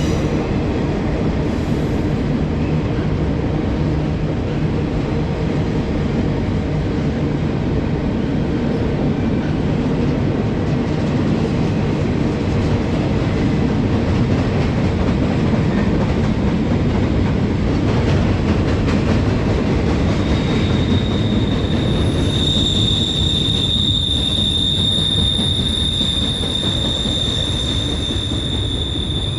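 Norfolk Southern freight train rolling past, a steady rumble of wheels on rail. About twenty seconds in, a high, steady wheel squeal sets in and holds to the end.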